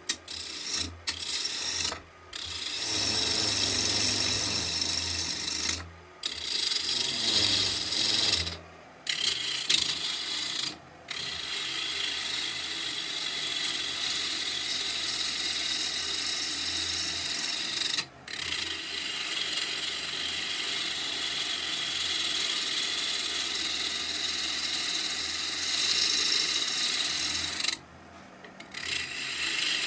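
Wood lathe running while a 5/8-inch gouge cuts into a spinning red oak blank, roughing it into shape: a steady rasping hiss of shavings coming off over a low motor hum. The cutting breaks off briefly several times.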